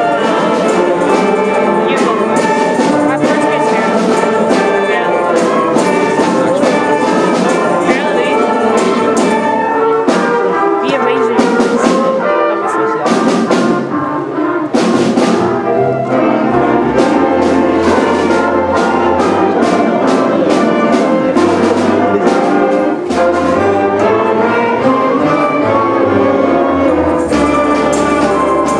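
Junior school concert band of brass and woodwinds playing a piece, with brass to the fore. Low bass notes join about halfway through.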